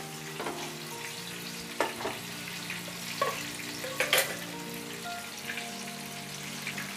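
Battered chicken-and-vegetable satay skewers deep-frying in hot oil in a kadai: a steady bubbling sizzle. A few sharp knocks cut through it, the loudest about four seconds in.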